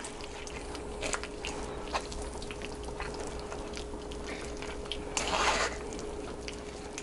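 Cooked rose hip mash being pressed through a wire-mesh sieve with a spoon, thick juice dripping into a stainless steel bowl, with scattered light clicks and a short louder squishing rush about five seconds in.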